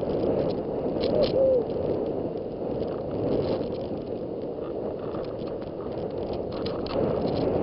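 Steady wind rumble on the microphone and snow rushing underfoot while riding down through deep powder, with scattered light crackles.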